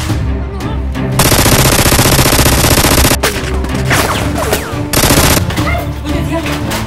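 Rapid automatic-gunfire sound effect dubbed over a toy-gun fight: one burst of about two seconds, then a short second burst a couple of seconds later, over background music.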